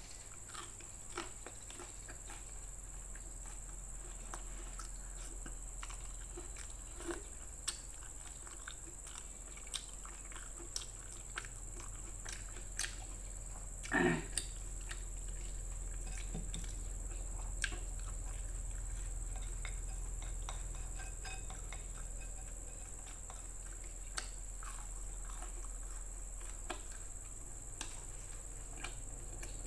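Close-up mouth sounds of someone eating grilled glutinous rice cake (ulen) dipped in chicken curry: wet chewing with irregular sharp clicks and smacks scattered throughout, and a short vocal sound about fourteen seconds in. A steady low hum and a faint high whine sit underneath.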